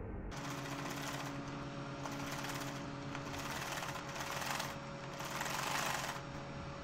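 Sewing machine running steadily as it stitches contrast piping onto cotton fabric, starting just after the beginning and growing louder twice in the second half.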